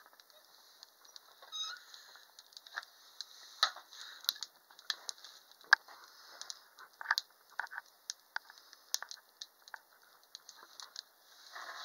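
Wood fire burning in a wood stove, crackling with irregular pops and snaps. A short squeak comes about a second and a half in.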